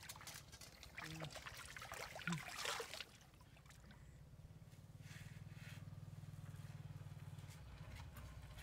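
A small engine running steadily at low pitch, with water splashing and trickling over the first few seconds.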